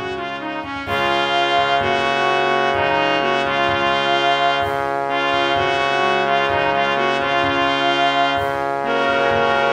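Marching band music: brass section playing a loud, full theme over a steady drumline beat. The full band comes in about a second in after a short falling run, with three cymbal crashes spaced evenly through the passage.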